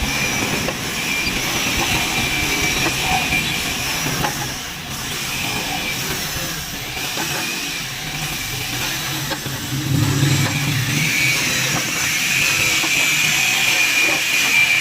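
A woodworking power tool running steadily, with a continuous hiss and a high whine that fades in the middle and comes back strongly about ten seconds in.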